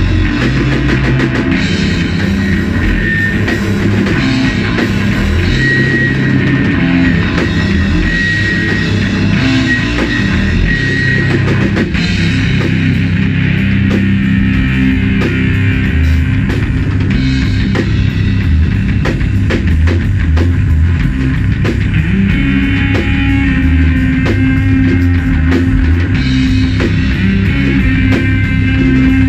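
Live stoner-doom rock jam: loud, heavily distorted electric guitar riffing over a drum kit with steady cymbal and drum hits.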